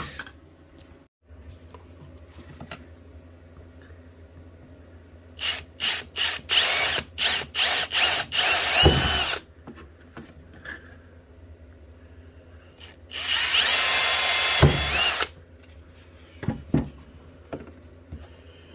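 Milwaukee M18 cordless oscillating multi-tool running. About five seconds in it is switched on in a series of short bursts for a few seconds, and later it runs steadily for about two seconds with a high whine.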